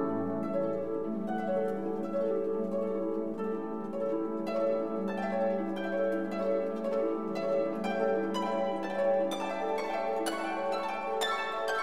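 Instrumental background music of plucked strings over a held low note, the plucked notes getting busier about halfway through.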